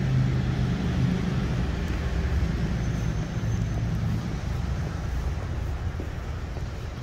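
City street traffic: a steady low rumble of motor vehicles, easing off slightly toward the end.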